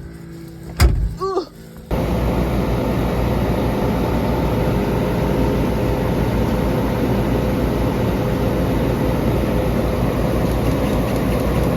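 A sharp knock about a second in, then from about two seconds a steady vehicle engine running at an even speed.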